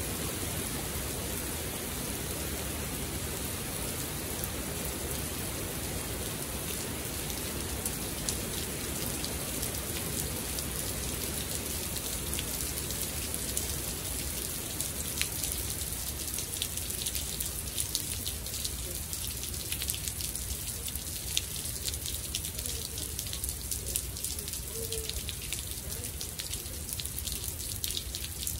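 Heavy rain falling steadily onto a hard court covered in standing water. Sharp individual drop hits stand out more and more through the second half as the lower rushing sound thins a little.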